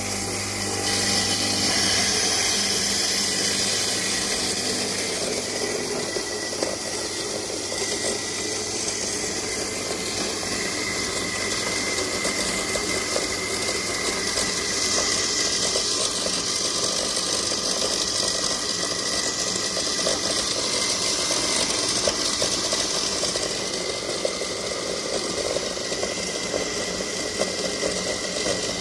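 Small combined rice mill and grinder with its built-in electric motor running steadily: a constant hum and a thin high whine under a continuous hiss.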